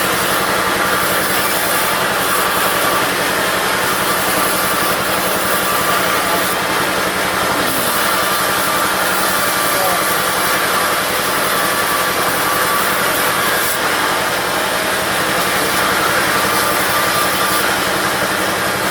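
Sawmill's diesel engine and the push-bench saw it drives running steadily, with a constant hum and an even, unchanging level.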